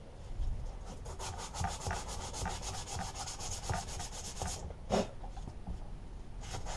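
Rusty steel lawnmower axle being sanded by hand with sandpaper: quick, even back-and-forth rubbing strokes that stop a little after four seconds in, with one louder stroke about five seconds in and lighter rubbing resuming near the end.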